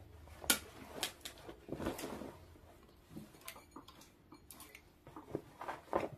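Denim jeans being gathered and shifted across a sewing table: cloth rustling with a few light knocks and clicks.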